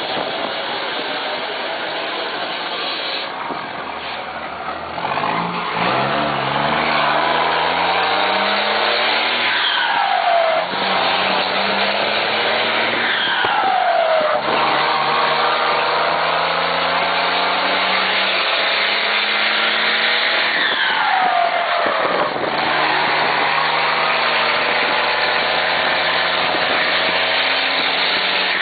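Volkswagen Constellation truck's diesel engine pulling hard under acceleration, its pitch climbing through each gear and dropping at three gear changes, each change preceded by a short falling whistle. The engine is quieter for the first few seconds before it starts to pull.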